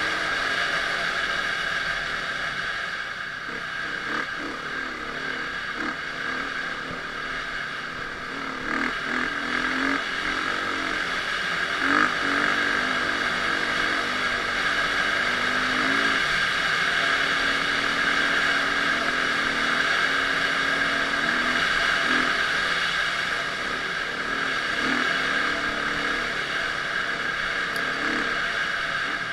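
Dirt bike engine running under way, its note holding and then jumping up and down in steps as throttle and gears change, over a steady high hiss.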